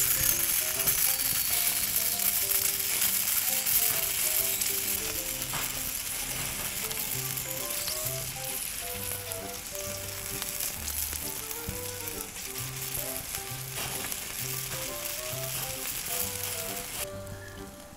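Sausages sizzling on a wire grill over an open wood fire, a steady hissing sizzle that cuts off about a second before the end. A light melodic background music track plays throughout.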